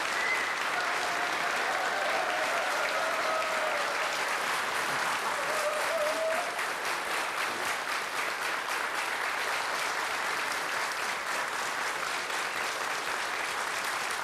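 Studio audience applauding steadily as a guest comes on stage, with a faint wavering pitched sound over the first six seconds.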